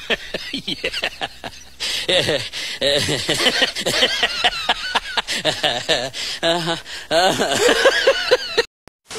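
Women talking and laughing, with quick bursts of giggling; the sound cuts out abruptly just before the end.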